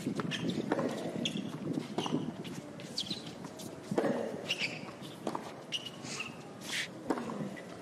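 Tennis rally on a hard court: sharp racquet strikes on the ball every second or two, with sneakers squeaking and scuffing on the court surface between shots.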